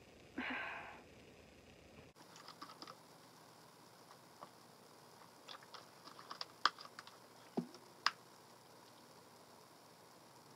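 A short breathy exhale through the nose, then scattered light clicks and taps from small objects being handled, a few sharper ones close together near the middle.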